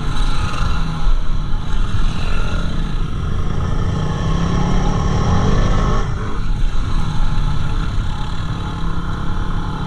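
Yamaha WR250R dual-sport motorcycle's single-cylinder engine running under way, its pitch shifting a little with the throttle and easing briefly about six seconds in.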